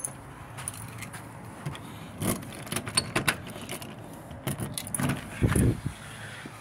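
Keys jangling and clicking at a front door lock as the door is unlocked and opened, with a louder low thump about five and a half seconds in.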